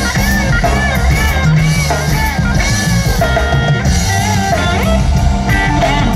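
Live band playing: electric guitar lead with repeated bent notes over electric bass and a drum kit.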